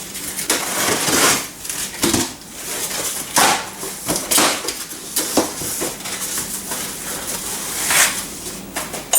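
Cardboard shipping box being opened by hand: a run of irregular scrapes, rustles and knocks of cardboard and packing.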